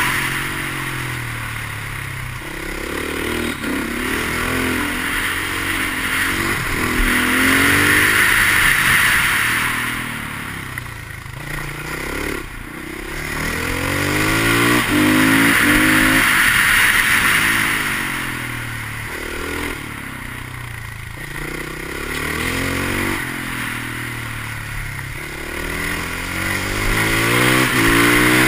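Husqvarna 510 SMR supermoto's single-cylinder four-stroke engine, revved up through the gears and eased off again for the corners, pitch rising with each pull and falling at each shift. Wind rush over the onboard microphone swells with speed.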